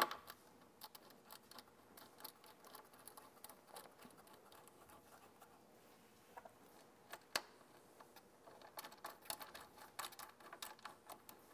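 Faint clicks and scratches of small metal hardware: motor-cable lugs, bolts, washers and lock washers being fitted by hand onto the terminal posts of an AC motor controller. Scattered light clicks, a sharper one about seven seconds in, and a quicker run of them near the end.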